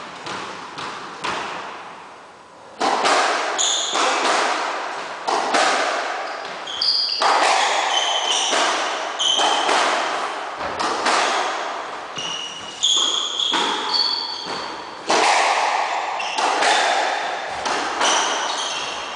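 Squash rally: the ball is struck by the racquets and smacks against the court walls in a quick series of echoing hits, a few at first and then about one or two a second from about three seconds in. Short high shoe squeaks on the wooden floor sound between the hits.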